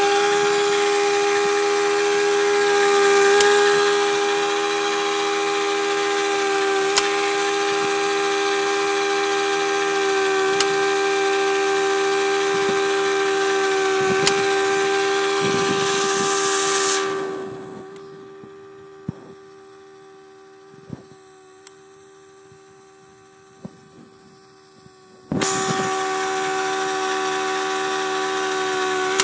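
Air-driven pipe bevelling machine running and cutting a bevel on a steel pipe end, a steady whine over air hiss. A little past halfway it winds down to a quiet stretch of about eight seconds broken by a few sharp clicks, then starts up again abruptly.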